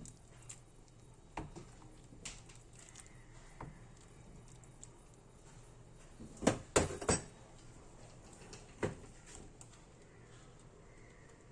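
Kitchen clatter: a few light knocks and clicks of utensils and cookware, then three sharp clanks in quick succession about two-thirds of the way through, with another knock shortly after.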